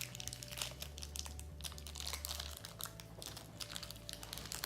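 Plastic blind-bag packaging of a collectible toy crinkling in the hands as it is opened, a busy run of irregular crackles.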